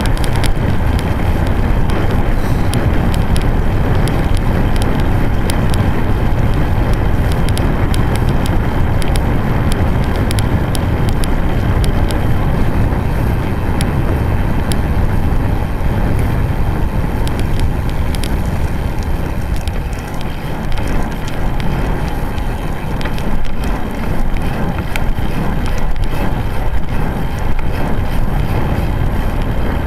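Wind buffeting the microphone of a camera mounted on a moving road bike, over the rolling noise of the tyres on asphalt, with many small clicks and rattles scattered throughout.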